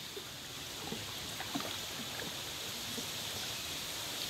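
Small wooden rowboat moving along a canal: a steady wash of water running along the hull, with a few faint knocks.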